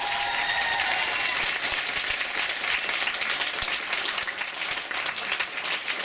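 Concert hall audience applauding: dense, steady clapping from many hands.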